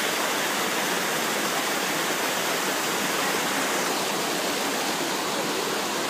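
Mountain stream cascading over rocks, a steady rush of water.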